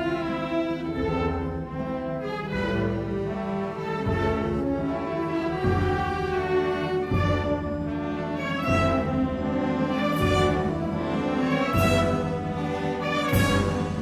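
Slow, solemn instrumental march with brass playing held notes, over low drum strokes about every second and a half. Cymbal crashes join the drum strokes in the second half.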